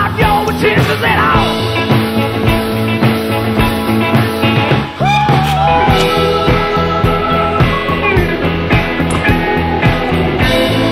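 Rock music with a steady drum beat; it drops out briefly about five seconds in, then comes back in with a sliding note.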